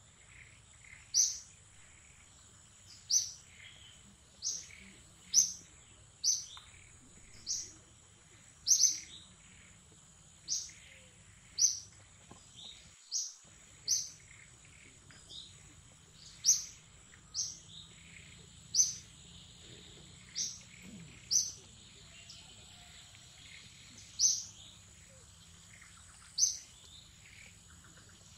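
A bird calling with short, sharp, falling notes, repeated about once a second, with fainter chirps of other birds between them and a steady high-pitched whine behind.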